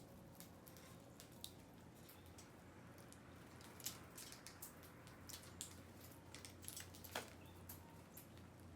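Near silence with a faint low hum, broken by scattered small clicks and ticks at irregular intervals.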